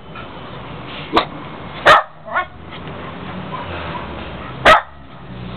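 Dog barking: four short, sharp barks spaced out, the loudest about two seconds in and near the end.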